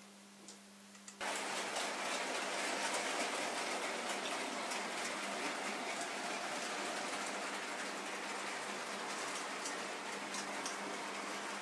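N gauge model freight train of wagons rolling past on the track: a faint ticking of wheels on rail joints, then, starting abruptly about a second in, a steady rushing rattle of wheels on the rails with fine clicks. A low steady hum runs underneath.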